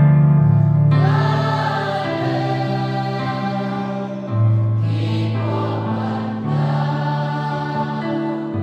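Mixed choir singing a slow hymn in long held chords, with an electronic keyboard accompanying; the harmony moves to a new chord every two to three seconds.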